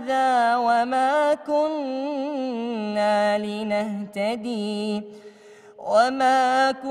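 A man reciting the Quran in melodic tajweed style, holding drawn-out vowels with ornamented turns of pitch. About halfway through he drops to a lower note; near the end he pauses briefly for breath and comes back in on a higher note.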